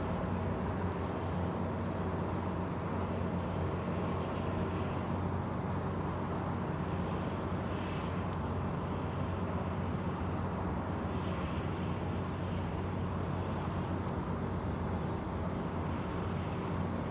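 Tugboat diesel engine running steadily, a low, even drone with no change in speed.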